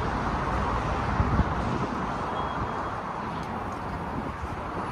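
Steady city street traffic noise, with a brief low knock about a second in.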